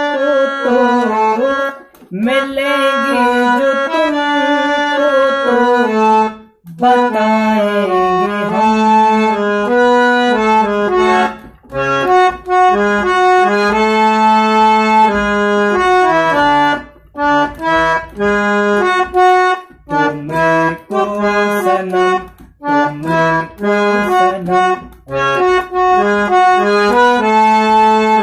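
Harmonium playing a single-line melody, note by note, in short phrases with brief breaks between them.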